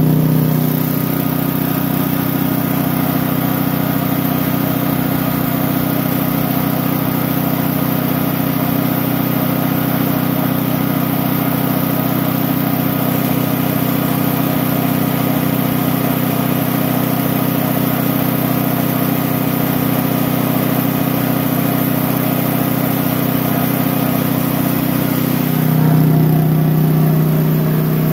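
Cast-iron Briggs & Stratton single-cylinder flathead engine running steady and even at its governed top speed of about 3,700 rpm on aviation fuel, with the ignition timing retarded to 25° before top dead center. It gets a little louder near the end.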